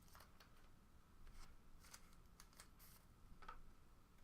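Near silence with a few faint, brief rustles and ticks of trading cards and packs being handled.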